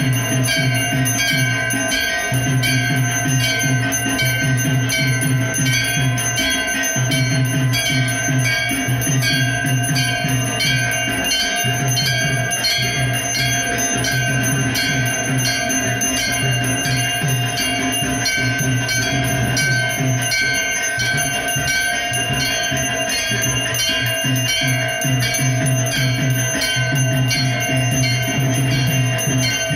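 Hanging brass temple bell rung rapidly and without pause during aarti, its tone ringing on steadily, over a steady low rhythmic beat.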